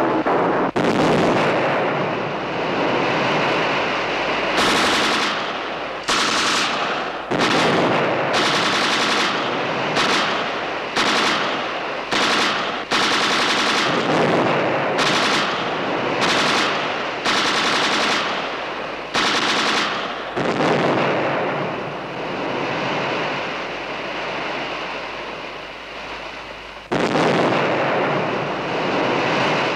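Repeated bursts of machine-gun fire, each starting abruptly. Most are short, and a few run on for several seconds.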